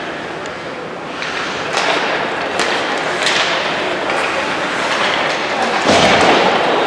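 Ice hockey play in an echoing rink: sharp clacks of sticks and puck and scraping skates, with a heavier thump about six seconds in, over a background of voices.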